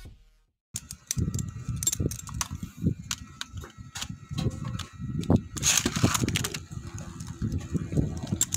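Metal Fight Beyblade tops, L-Drago Destroy F:D and Diablo Nemesis X:D, being handled and launched into a stadium: scattered sharp clicks and clatters, a brief rasping burst about six seconds in, then the tops spinning and rattling against the stadium floor.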